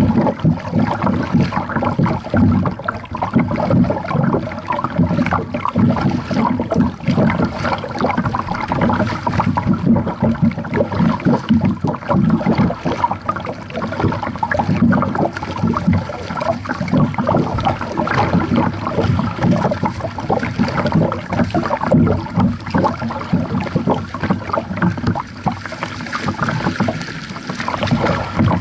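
Lake water lapping and sloshing right at the microphone as a kayak moves through calm water, a steady, choppy wash of small splashes.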